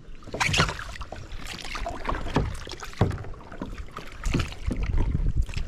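Kayak being paddled: irregular paddle strokes and splashes in the water over a low rumble.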